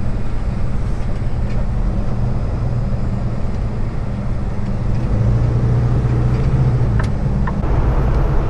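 Kenworth T680 semi truck's diesel engine running under way, heard from inside the cab as a steady drone that strengthens for a couple of seconds in the middle. Two light clicks come near the end.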